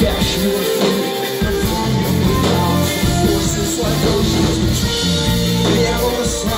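Live rock band playing loud, amplified music, with electric guitars and bass.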